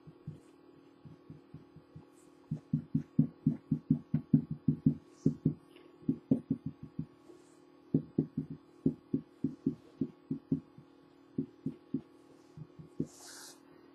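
Fabric paint pen being dabbed against a T-shirt laid on a hard surface, making runs of short, soft, low thumps about three to four a second, with a pause in between, over a steady low hum. A brief hiss comes near the end.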